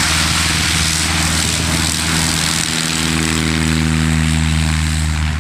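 Piper Super Cub's engine and propeller running with a loud, steady drone that holds an even pitch.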